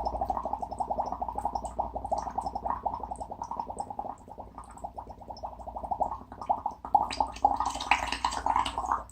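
Foley bubbling: a rapid, even stream of wet gurgling pops, like air blown through liquid, that stops abruptly near the end. A hissing wash joins it in the last second or so.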